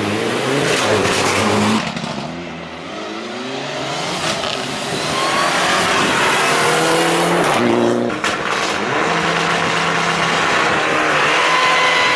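Mitsubishi Lancer Evo IX rally car's turbocharged four-cylinder engine revving hard as the car accelerates past on several passes. The engine note climbs and drops with the gear changes.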